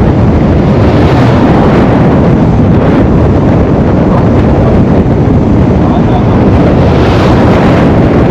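Loud wind buffeting on the microphone together with road noise from a car driving at highway speed, a steady roar with no distinct events.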